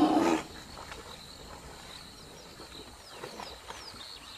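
A loud drawn-out cry stops about half a second in. Then comes a low outdoor background with a few faint high chirps.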